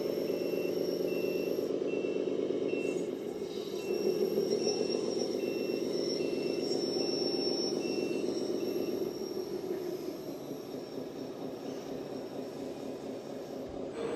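An RC truck's sound module plays a simulated diesel engine running, with a reversing beeper sounding about once a second. The beeping stops about two-thirds of the way through, and the engine sound carries on a little quieter, with a faint high whine above it.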